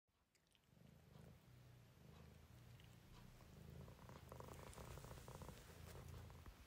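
A house cat purring quietly and steadily, a little louder from about four seconds in.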